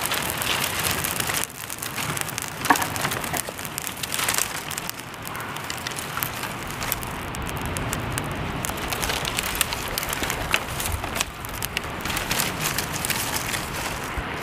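Small twig fire just catching, crackling with many sharp pops, while bundles of dry twigs rustle and snap as they are piled on top of it.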